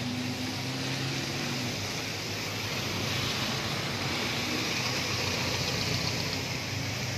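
Vehicles driving past on a rain-soaked street: tyres hissing on the wet road with a steady engine hum, over continuous rain.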